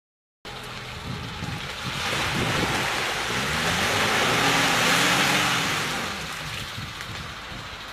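Suzuki 4x4's engine revving up and down as it ploughs through a muddy water hole, under a loud rush of splashing water that swells to its peak about halfway through and then eases. The sound cuts in abruptly just after a moment of silence.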